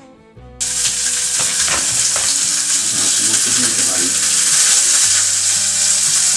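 Stir-fried yakisoba with pork, carrot and bean sprouts sizzling loudly in a hot pan. The sizzle starts suddenly about half a second in and cuts off near the end, with faint background music underneath.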